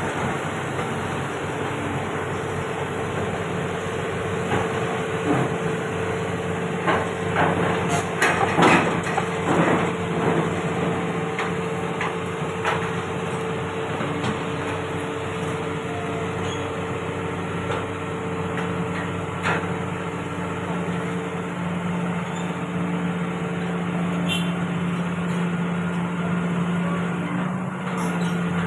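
Heavy diesel machinery running steadily, with scattered metal clanks and knocks, a cluster of them about a quarter of the way in.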